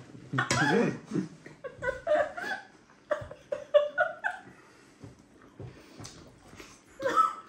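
A woman laughing in short bursts, muffled behind her hand, with quiet stretches between. A couple of sharp clicks come about midway.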